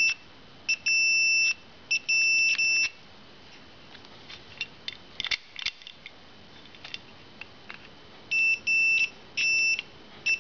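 Multimeter continuity beeper sounding in uneven, broken beeps that cut in and out, with several seconds of no beeps and a few small clicks in the middle. The on-and-off tone shows continuity through a motorcycle ignition switch coming and going, an intermittent contact that the owner suspects could be a faulty switch or the meter.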